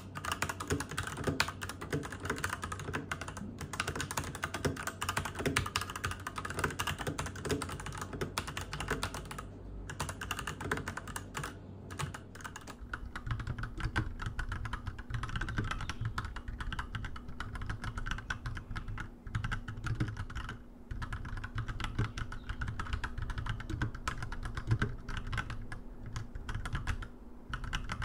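Typing on a Royal Kludge RK87 mechanical keyboard: a steady run of key clacks. About halfway through the typing turns slower and softer.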